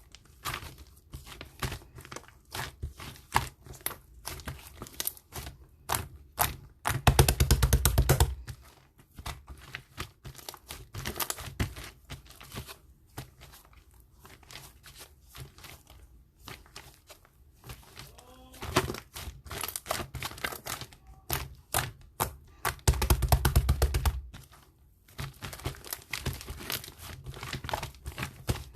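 Cloud slime handled by hand: a dense, irregular sticky crackling and soft tearing as it is stretched, squeezed and pulled apart, with two louder stretches of about a second and a half each.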